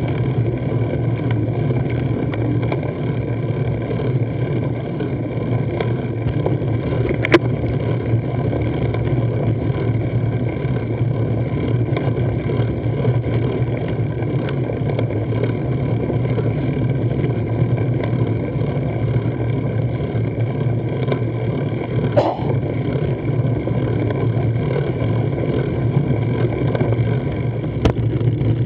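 Steady low rumble picked up by a camera mounted on a road bike's handlebar while climbing slowly on rough tarmac: road vibration and wind on the microphone. A few sharp clicks stand out, about seven seconds in, a little past halfway, and near the end.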